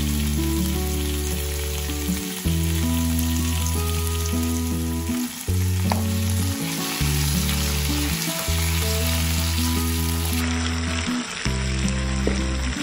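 Food frying in hot oil, with a steady sizzle throughout. Background music with long held low chords that change every second or two plays over it.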